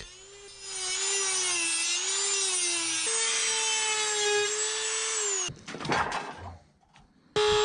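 Dremel rotary tool with a cutoff disc cutting through thin stainless steel shim stock: a steady high whine that wavers in pitch as the disc is loaded and steps up slightly about three seconds in. It stops about five and a half seconds in, and the tool starts again just before the end.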